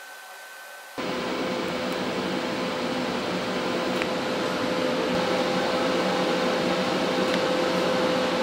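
TIG welding arc on steel tubing: a steady hiss with a faint steady hum, striking about a second in and holding evenly.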